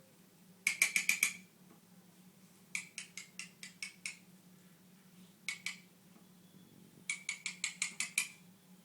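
Four bursts of sharp, rapid clicks, about ten a second, the first burst the loudest, over a low steady hum.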